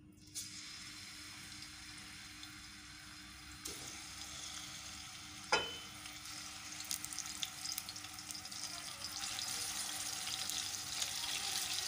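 Raw beef mince sizzling as it is spooned into hot oil in a pot, the sizzle growing louder as more meat goes in. Two sharp knocks are heard in the first half.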